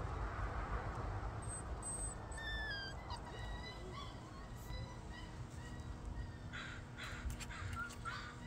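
Beagle puppies giving short, high-pitched whimpering squeaks and whines, several in a row with some falling in pitch, with a little rustling near the end.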